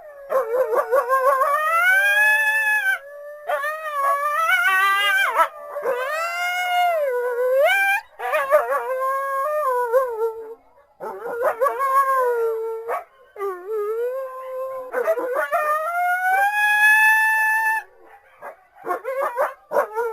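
Coyotes howling in chorus: several overlapping howls that rise, fall and waver in pitch, coming in bursts with short pauses between them.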